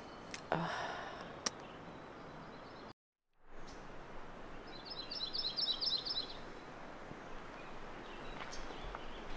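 Outdoor ambience with a songbird singing a quick run of high chirps for about a second and a half near the middle. There are a few faint rustles and a click in the first seconds, and a short break of dead silence about three seconds in.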